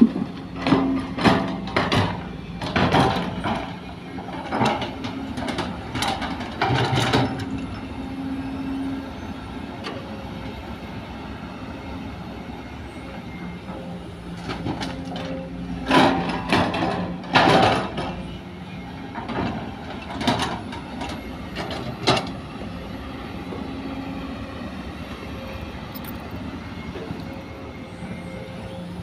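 Sumitomo hydraulic excavator's diesel engine running steadily as two bucket loads of soil and stones are dumped into a dump truck's bed. Each load gives a cluster of knocks and thuds lasting several seconds, one at the start and one about halfway through.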